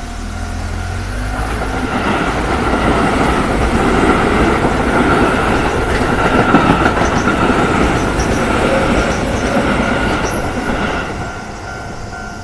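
Keio Line electric commuter train passing over a level crossing, with wheels clattering on the rails. The train noise builds for a couple of seconds, stays loud through the middle and fades near the end, while the crossing's warning bell keeps dinging underneath.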